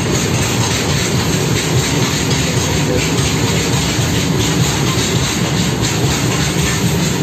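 Freight train of open-top box wagons rolling past close by: a steady, loud rumble of steel wheels on the rails, with occasional clicks as the wheels cross rail joints.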